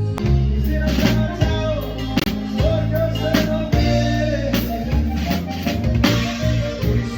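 Norteño band music: drum kit keeping a steady beat under sustained bass notes and a wavering melody line.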